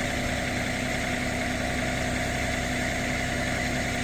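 An engine running steadily at a constant speed, with a steady hum holding one pitch.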